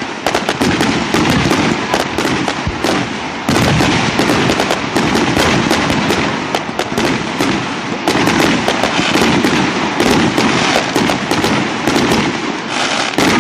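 Fireworks display: a loud, dense, unbroken crackle of many rapid pops and small bursts over a constant rumble, thickening a few seconds in.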